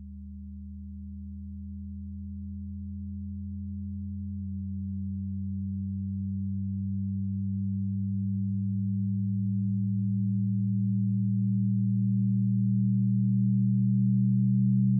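Synthesized drone of a few steady low sine tones, of the kind laid under hypnosis tracks, swelling steadily louder. One tone shifts slightly about four seconds in, and the lowest tone slowly moves upward.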